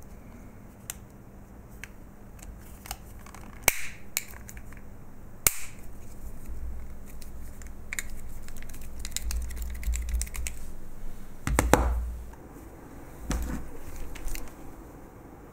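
Handling of a small plastic calculator battery pack as it is fitted back together: scattered sharp plastic clicks, a busy stretch of small clicks and rubbing in the middle, and a louder knock about two-thirds through.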